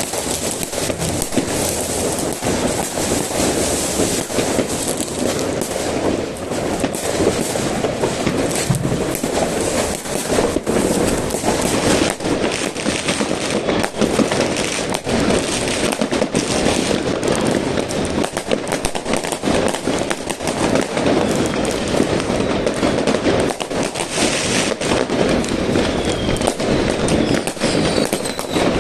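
Fireworks going off in a dense, continuous barrage of bangs and crackling. A few whistling rockets are heard near the end.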